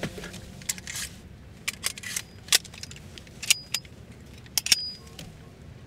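Handgun being handled: a series of sharp metallic clicks and clacks, about a dozen spread irregularly over several seconds, some with a brief high ring.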